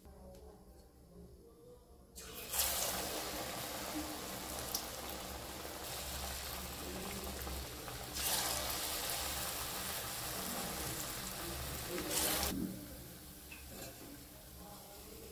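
Battered chops deep-frying in hot oil in a steel kadai: a sizzling hiss starts a couple of seconds in, gets louder around eight seconds as a fresh battered piece goes in, and dies down a few seconds before the end as the fried chops are lifted out on a slotted spoon.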